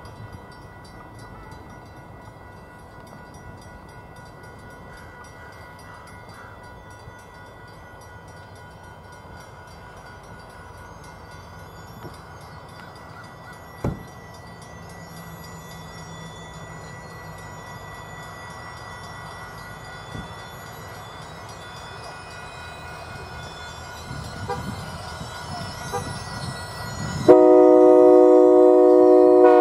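Passenger train rolling past, its rumble slowly growing as it comes closer, with a single sharp click about halfway through. Near the end the train's multi-note air horn blows loudly, a held chord that is still sounding at the end.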